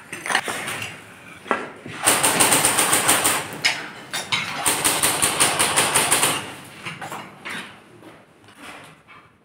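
Airsoft guns firing on full auto indoors: two long rapid bursts of about a second and a half each, with a few single shots before them.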